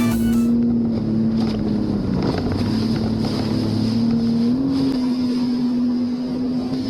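Jet ski engine running at a steady cruise over open water, with wind and water hiss. The engine pitch dips about two seconds in and rises again a little before five seconds as the throttle changes.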